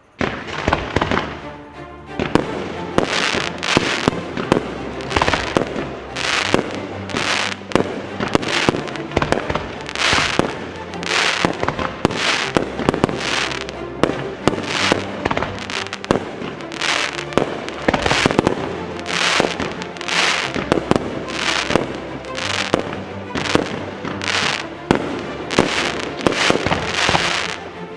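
A fireworks display: shells bursting and crackling in quick succession, with music playing along to a steady beat. The sound starts suddenly.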